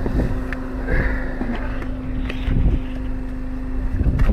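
Karakat all-terrain vehicle's engine running steadily as it drives over rough ground, a constant hum with a few short knocks and rattles from the body.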